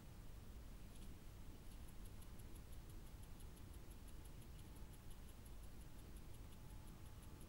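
Faint, rapid high-pitched ticking, about six ticks a second, beginning about a second in, over a low steady background hiss and rumble.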